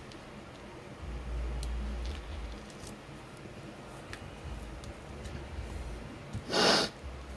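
Quiet working noise with a few faint clicks and low rumbles, then about six and a half seconds in one short, sharp breath through the nose, the loudest sound here.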